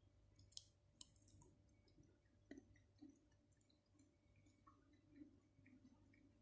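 Very faint eating sounds: small scattered sticky clicks, with two sharper clicks about half a second and a second in.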